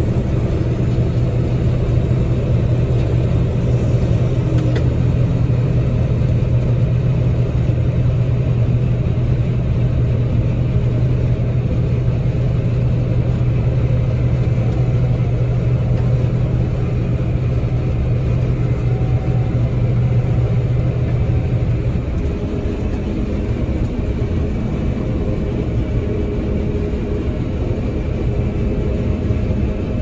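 John Deere combine harvester running, heard from inside the cab while it unloads grain into a cart on the go: a steady mechanical drone with a strong low hum. About two-thirds of the way through, the hum drops away and the noise gets a little quieter.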